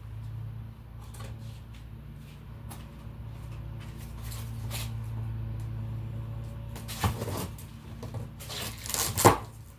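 Handling noises from a new dehumidifier and its packaging: scattered knocks and rustles over a steady low hum, with a louder clatter about seven seconds in and the loudest knock near the end.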